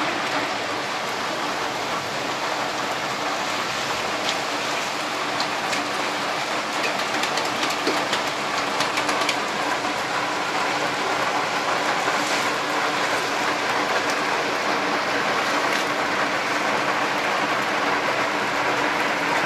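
Heavy rain pouring onto a flat concrete rooftop covered in standing water: a dense, steady hiss of drops hitting the water, with scattered sharper ticks of single drops.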